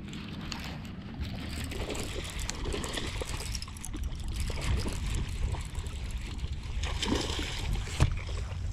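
Wind rumbling on the microphone, with water splashing and rustling as a hooked fish is reeled to the bank and landed.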